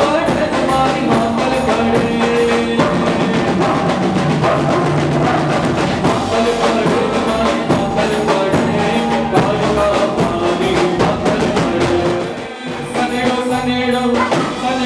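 Live garba band music with fast, dense drumming from a drum kit and hand percussion over keyboard and bass guitar. About twelve seconds in the drumming drops out briefly, leaving held notes, before the rhythm comes back.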